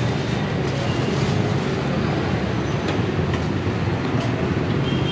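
Steady din of street traffic with motorbike engines, with a few faint light clicks.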